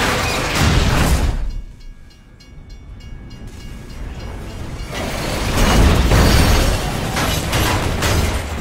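Derailing passenger train carriages crashing along the track, a loud rumbling, scraping noise. Around a second and a half in it drops away to a brief lull with faint steady tones. From about five seconds in it builds back to a loud crash as a carriage tumbles.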